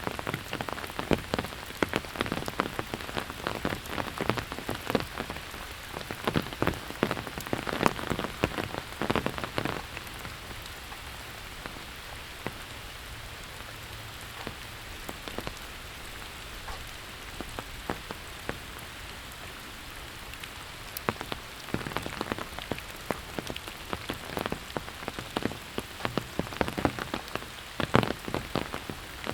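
Steady rain falling, with many loud, sharp drop hits close by through the first ten seconds and again from about twenty-two seconds in. In between, the even hiss of the rain is all that is heard.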